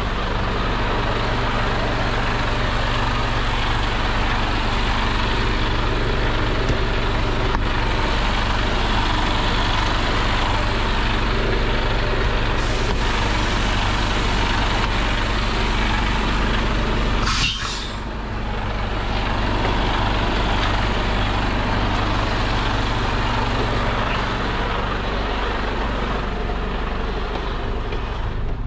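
Tractor truck's diesel engine idling steadily, with one short, sharp hiss of compressed air from the truck's air system a little past halfway through.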